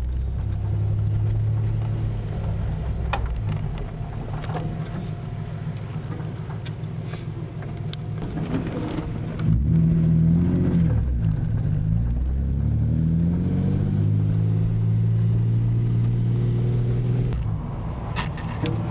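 Datsun 280ZX's straight-six engine driving on the road with a freshly rebuilt cylinder head, heard from inside the car. The engine note drops and climbs again through a gear change about halfway through, then holds steady while cruising, with a few light clicks early on.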